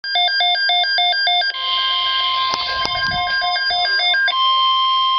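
Emergency Alert System alert tones: a loud electronic pattern of tones switching back and forth several times a second, then a steady single-pitch alert tone begins about a second and a half in. The switching tones stop near the end, leaving the steady tone sounding alone.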